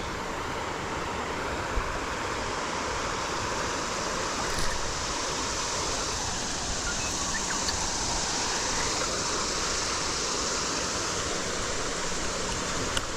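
Steady rush of creek water flowing fast, the creek running high after heavy rain, with a few faint small clicks.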